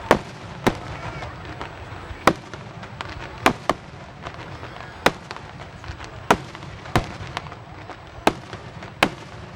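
Fireworks display: aerial shells bursting in about ten sharp bangs at uneven intervals, some in quick pairs.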